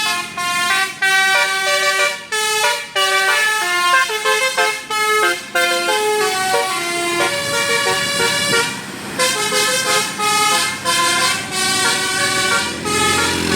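Basuri telolet horn on a tour bus playing a fast melody, a run of short stepped notes with a brief break about nine seconds in.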